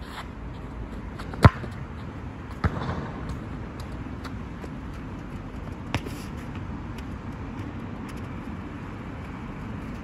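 A football kicked with a sharp thud about a second and a half in, then a second, softer thump a little over a second later, and a faint knock about six seconds in, over a steady low background noise.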